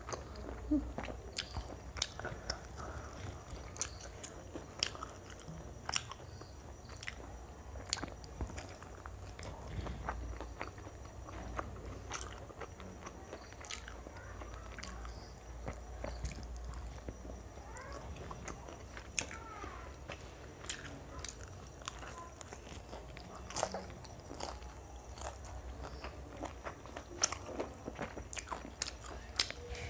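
Close-up eating sounds of a person biting and chewing crispy fried chicken, with irregular crunches and mouth clicks throughout.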